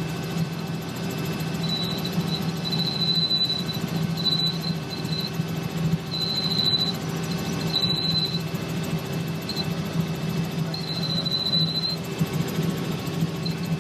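Helicopter in flight: a steady low drone of the rotor and engine, with a thin high whine that comes and goes several times.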